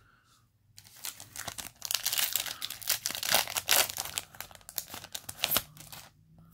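Foil Yu-Gi-Oh! booster pack being torn open and crinkled in the hands, a run of crackling rustle that starts about a second in and stops shortly before the end.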